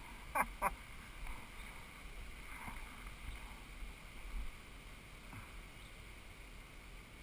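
Faint outdoor background with a low rumble of wind on the microphone; two short sharp sounds about half a second in.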